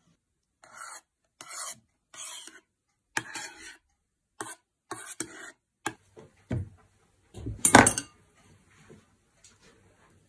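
A metal spoon stirring and scraping thick pudding in a ceramic bowl, in about six short strokes. Then two knocks, the second one, about three-quarters of the way in, the loudest sound here, followed by faint handling noise.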